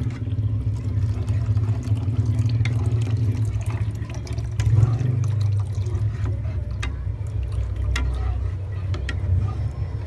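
Milk poured in a thin stream into a simmering cream sauce in a frying pan while a wooden spatula stirs it, with scattered small clicks. A steady low hum runs underneath and is the loudest thing throughout.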